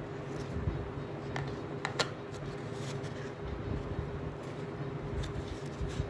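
Steady low mechanical hum, with a few small clicks and taps about two seconds in from hands handling a crochet hook, yarn and a plastic toy.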